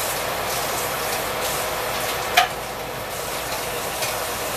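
Cornmeal hush puppies deep-frying in a pan of hot oil, a steady sizzle with scattered small crackles. A single sharp click stands out about halfway through.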